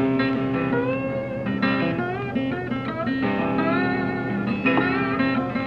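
Background music led by plucked guitar, with some notes bending in pitch.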